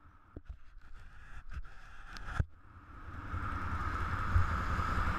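A few clicks and knocks, the sharpest about two and a half seconds in, then an off-road vehicle pulls away along a dirt trail, its engine and riding noise rising steadily and holding.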